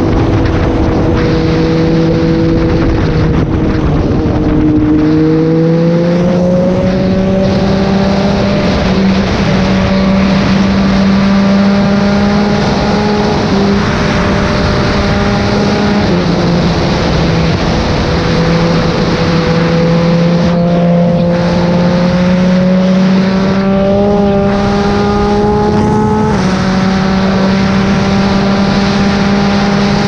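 Yamaha MT-09's inline-three engine running at highway speed, its note steady between a few steps up and down in pitch, with a heavy rush of wind noise underneath.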